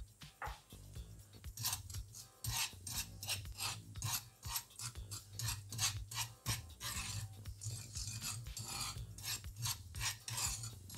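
Metal spoon scraping across the bottom of a nonstick frying pan, stirring granulated sugar into water: rapid gritty rasping strokes, about three a second, starting about a second and a half in. The sugar is being dissolved before it is cooked down to caramel.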